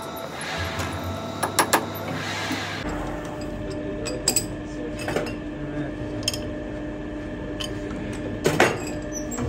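Sharp metallic clicks and clinks from a chuck key and steel tools working a lathe's four-jaw chuck, which holds a tie-rod ball joint. A steady hum comes in about three seconds in.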